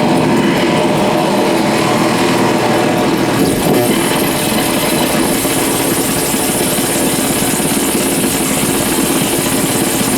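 Amplified electrical interference from flickering, dimmer-driven compact fluorescent bulbs, picked up by exposed guitar cables and left unprocessed. It makes a loud, dense, steady buzz that turns brighter and hissier about three and a half seconds in.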